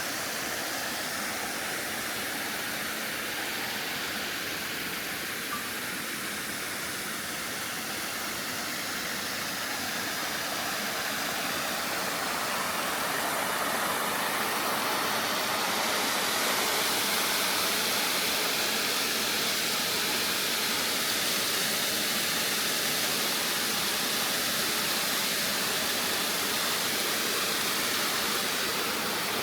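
Mountain stream rushing over a rock bed in a chain of small waterfalls: a steady rush of water that grows louder about halfway through.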